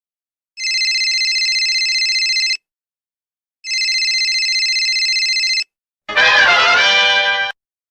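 Telephone ringing twice: two fast-trilling electronic rings of about two seconds each, a second apart. Near the end a different, unidentified sound lasts about a second and a half.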